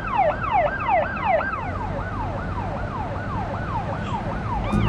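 Ambulance siren in a fast yelp, its pitch sweeping up and down about three times a second, growing fainter after about two seconds, over the low rumble of the vehicle.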